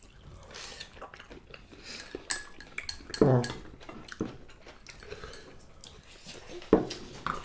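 Eating at the table: chopsticks clicking and scraping against ceramic bowls in many small taps. Two short vocal sounds, louder than the taps, come about three seconds in and again near the end.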